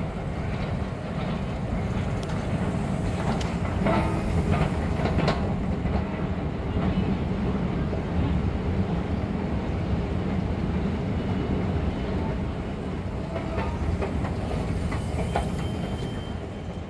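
New York City Subway 7 train running on the track: a steady low rumble, with clusters of clicks of the wheels over the rail joints about four seconds in and again near the end.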